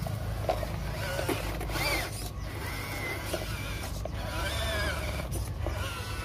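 Small electric drive motor and gearbox of a homemade RC pickup truck whining as it crawls, the whine rising and falling in pitch twice as the throttle is worked, over a steady low hum.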